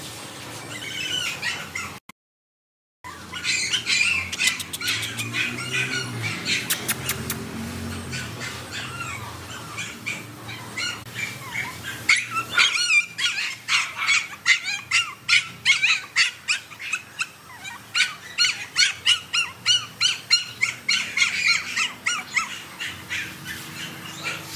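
A small puppy crying over and over in short, high cries, which come faster, several a second, in the second half.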